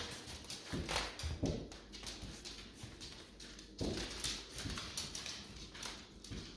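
Irregular footsteps and scuffs on a hard surface, about one heavier step a second with lighter clicks between them.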